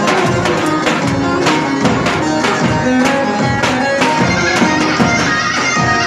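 Traditional dance music for a slow halay: a steady drum beat about twice a second under a sustained melody.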